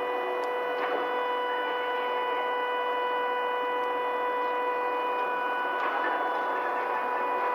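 A steady machine whine at one fixed pitch with overtones, over a noisy mechanical bed, with a few faint clicks.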